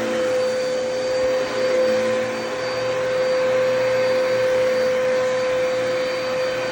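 Dyson DC33 upright vacuum cleaner running steadily, its motor giving a constant high whine over rushing air.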